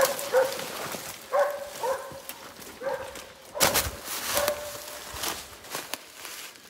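West Siberian Laikas barking in short, repeated barks about once a second as they chase and bay a black bear. Footsteps and brush rustle crash through it, loudest about three and a half seconds in.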